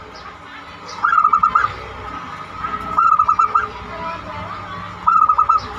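Zebra dove (perkutut) cooing: three short bursts of quick staccato notes, about two seconds apart.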